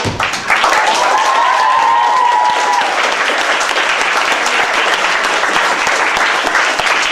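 Audience clapping and cheering, with one voice holding a long cheer from about one to three seconds in.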